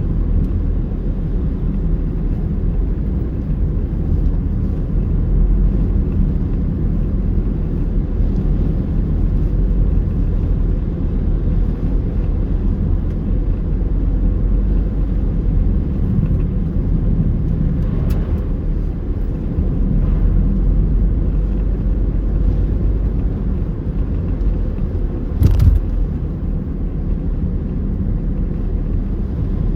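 Steady low rumble of a car's engine and tyres heard from inside the moving car, driving on a snowy road. A short knock sounds near the end.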